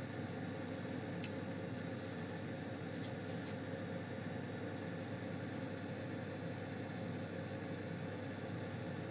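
Steady mechanical hum with a faint constant tone, and a few faint ticks about a second in and again around three seconds.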